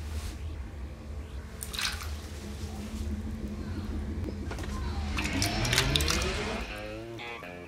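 Water splashing and trickling over a steady low hum, with a few louder splashes about two seconds in. A set of rising tones comes in about five seconds in.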